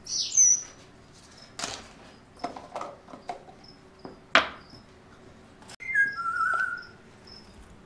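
Whistling: a quick high falling whistle at the start and a held, slightly wavering whistled note near the end, over faint short high peeps. Between them come sharp knocks and clicks of small plastic tubs being handled on a wooden counter, one hard knock about four seconds in.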